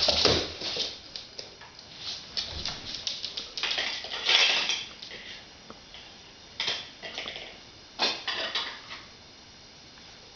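A vizsla's claws clicking and scrabbling on a hard floor in several bursts as it jumps and darts about, with a heavier thump of landing at the start.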